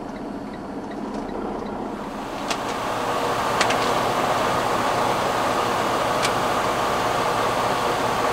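Semi truck standing with its engine running, under a steady rushing noise that grows louder and brighter about two seconds in. Three or four sharp clicks come after that.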